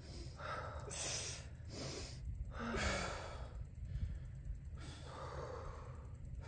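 Several deep, noisy breaths in and out, about one a second, from people sitting in icy lake water during a cold plunge: controlled breathing against the cold.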